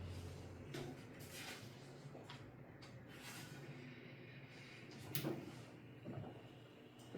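Faint scattered handling noises, short rustles and a sharp knock about five seconds in, over a low steady room hum.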